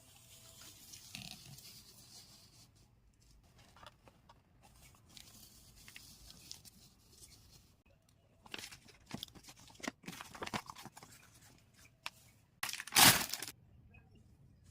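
Plastic bags holding model-kit runners crinkling and tearing as they are handled and opened, faint at first, with crackling handling in the second half and one louder rip near the end.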